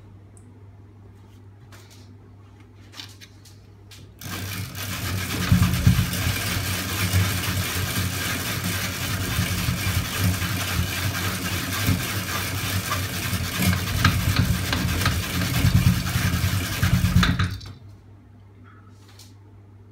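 Homemade magnet-engine rig running: its crankshaft, stack of disc magnets and chain sprocket spinning with a loud, noisy mechanical whir. It starts abruptly about four seconds in and stops suddenly near the end.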